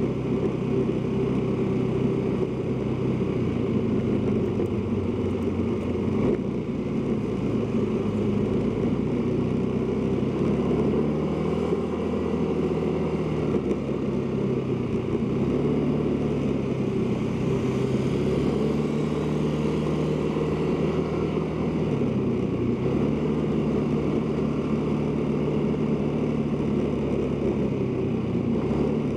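Motorcycle engine running under way, its pitch shifting up and down several times with the riding speed, over steady road and wind noise.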